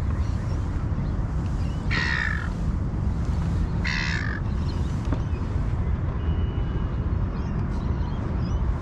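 Two short caws from a crow-type bird, about two seconds apart, over a steady low rumble of wind on the microphone.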